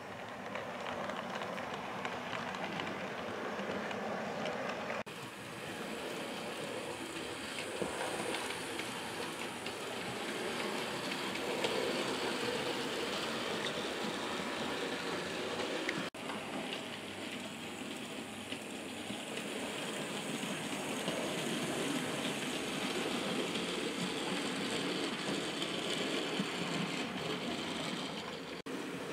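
Model trains running on the layout's track: a continuous rattling whir of small wheels over rail joints with electric motor hum. The sound breaks off sharply for an instant about 5 and 16 seconds in and again near the end, then carries on.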